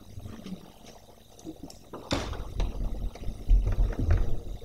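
Microphone handling noise: a sharp click about two seconds in, then a run of low thumps and bumps as the microphone is moved and set up.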